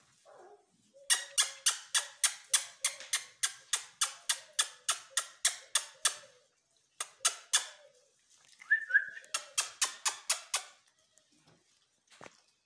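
A rapid series of sharp clicks, about four a second, in three runs separated by short pauses. A brief high squeak comes between the second and third runs.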